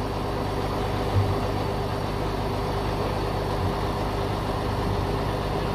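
The heavy lorry's diesel engine idling steadily while its truck-mounted loader crane holds the load, with a brief thump about a second in.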